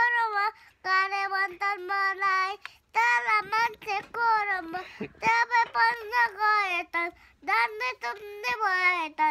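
A young child singing a Nepali song in a high voice, in short sung phrases with brief breaks between them.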